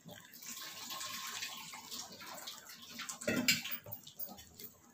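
Silicone spatula folding flour into wet cake batter in a bowl: a continuous soft, wet squelching and scraping, with a louder knock against the bowl about three seconds in.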